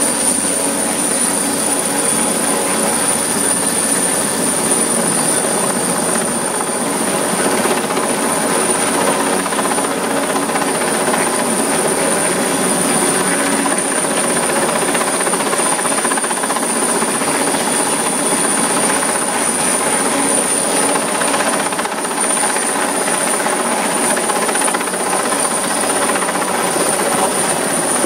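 Large single-rotor lifting helicopter hovering close overhead with a long cable slung beneath it, its rotor and engine running at a steady, loud level, with a steady high whine on top.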